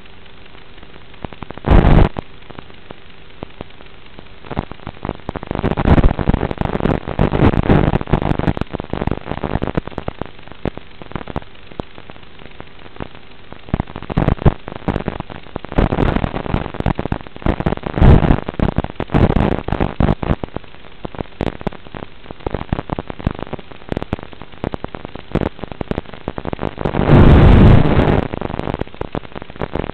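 Wind buffeting and crackling on an FPV plane's onboard microphone in flight. Loud irregular gusts come about 2 s in, from about 5 to 9 s, around 16 to 20 s and near the end, over a steady hiss and a faint steady hum.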